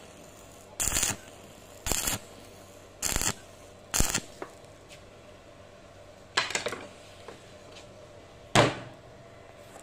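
Stick-welding arc from a 3.2 mm electrode on thin 1 mm sheet steel, struck in short crackling bursts, six of them, each cut off after a fraction of a second. This is intermittent stitch welding to build filler across a large hole without burning through. The last burst, near the end, is the loudest.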